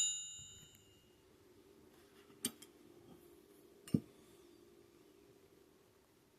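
The ringing tail of a metal clang fading out over the first second, then two light metallic clicks about a second and a half apart, as metal parts are handled on a workbench.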